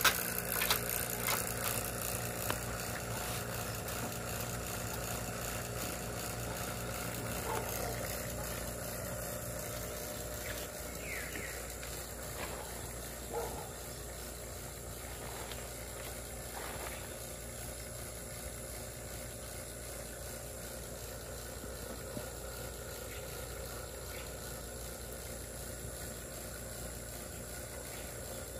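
Steady mechanical hum of a running motor, with a loud clatter of clicks right at the start and a few faint knocks now and then.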